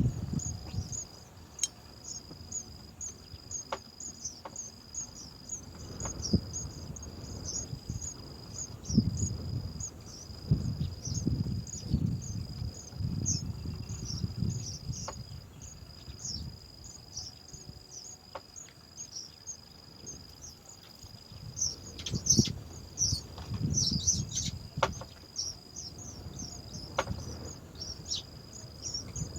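Steady high-pitched insect trill with short high chirps repeating a few times a second, over irregular low thuds and rustling.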